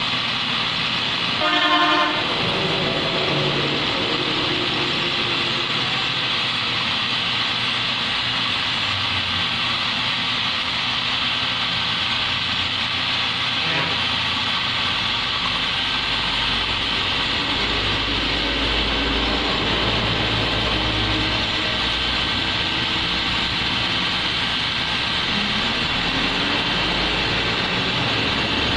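Steady road traffic noise with a vehicle horn sounding briefly about two seconds in; a low engine rumble comes in about halfway through.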